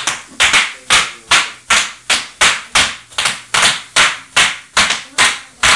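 Bubble wrap being crunched in a loud, steady rhythm, about three sharp crackling crunches a second.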